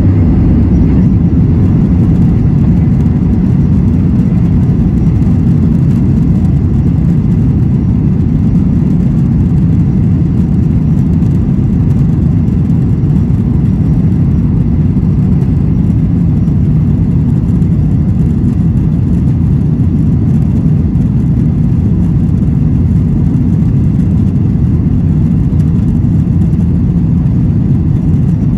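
Cabin noise of a Boeing 737-900ER moving along the ground: the CFM56 engines and rolling airframe make a loud, steady low rumble.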